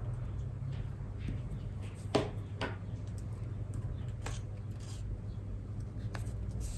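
Paper strips being handled and pressed flat onto card by hand: faint rustling and a few soft taps, the sharpest about two seconds in, over a steady low hum.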